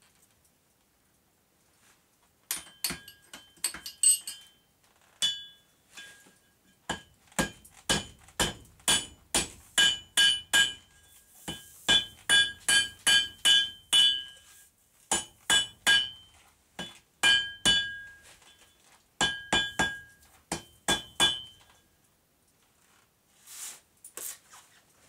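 Hand hammer striking a red-hot railroad spike on an anvil to forge an axe head. The blows come in quick runs of about two or three a second, each with a short metallic ring. They begin a couple of seconds in and stop a few seconds before the end.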